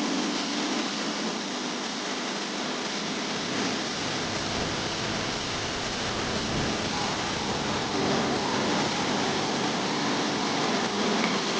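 Pressure washer spraying water onto a car's body panels, a steady hiss of spray that varies a little in level as the jet moves.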